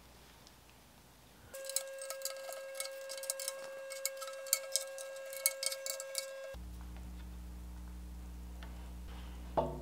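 Irregular light metallic clicks and ticks of small steel screws being set into the holes of a steel tank lid, over a steady hum. The ticking stops abruptly about two-thirds of the way in, leaving a low hum with a brief clatter near the end.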